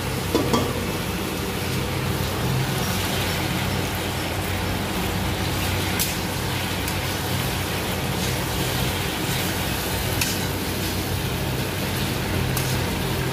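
Pasta frying in oil in a metal kadai on a gas stove: a steady sizzle, with the metal spatula clinking against the pan a few times as it is stirred, over a steady low hum.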